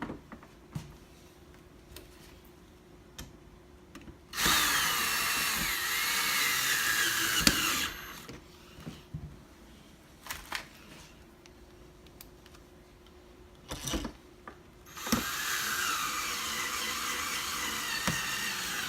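Power drill driving the mounting screws of a patio door handle, in two runs of about three and a half seconds each, the motor's pitch drifting as it works. Small clicks of handling between the runs.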